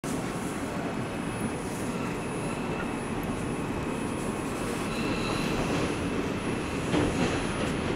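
R142 subway car running through a tunnel, heard from inside the car: a steady rumble of wheels on rails with a faint high whine, and a single knock about seven seconds in.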